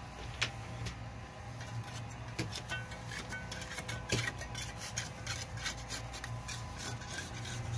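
Trowel blade scraping along the edge of a spirit level, cutting fresh cement render flush: one click about half a second in, then a rapid run of short scrapes and clicks through the second half, over a steady low hum.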